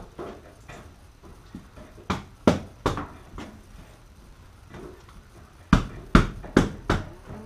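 Hands thumping on a car's rear window glass: three thumps about two seconds in, then four quicker ones near the end, seating the glass into fresh sealant.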